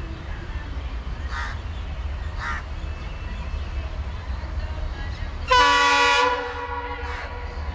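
Locomotive horn sounding one loud blast of under a second, starting suddenly about five and a half seconds in, over a steady low rumble of a passing freight train.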